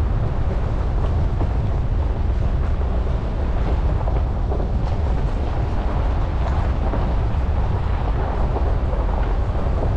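A 2020 Ford Ranger pickup driving along a gravel trail, heard from a camera mounted on its hood: a steady low rumble of tyres and truck with wind buffeting the microphone, and scattered small ticks of gravel.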